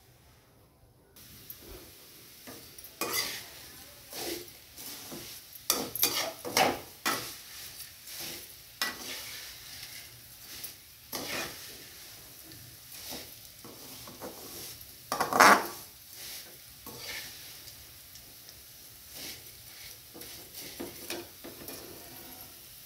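Perforated metal slotted spoon scraping and tossing vermicelli around a metal kadhai, with irregular scrapes and clinks, the loudest about fifteen seconds in. Under it a faint steady sizzle of the vermicelli roasting in a little oil until golden.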